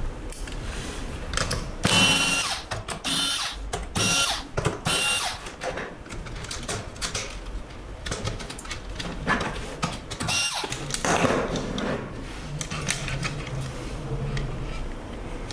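Hands working on a mini PC with a small screwdriver: irregular clicks, taps and short scrapes of metal and plastic parts being handled, bunched in a few busier spells.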